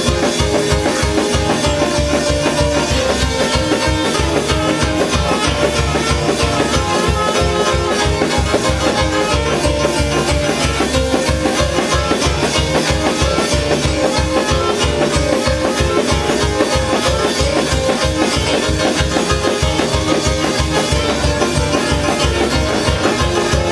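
Loud, up-tempo gospel praise music with a fast, steady drum beat and bass.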